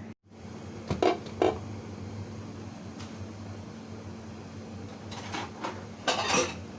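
Cookware being handled on the stove: a few short creaks and knocks about a second in, and a longer cluster near the end, over a steady low hum.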